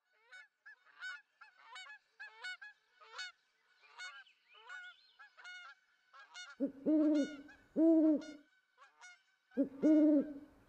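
Birdsong: a small bird's high, thin chirps, about two a second, then from about six and a half seconds in, much louder low arching calls from a larger bird, repeated about once a second.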